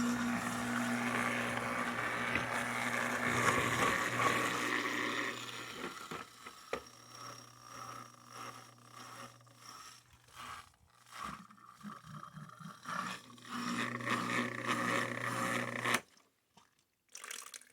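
Salvaged 120-volt AC washing-machine drain pump running with a steady hum, pushing water with a rushing gurgle for about five seconds, then sputtering and slurping irregularly as it sucks air with the water nearly gone. It cuts off suddenly near the end.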